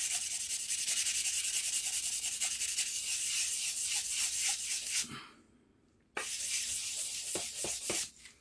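2500-grit sandpaper on a block rubbed in rapid back-and-forth strokes over the steel bevel of a carving axe: the last, finest grit of hand-sharpening the edge. The strokes stop about five seconds in and start again, less evenly, a moment later.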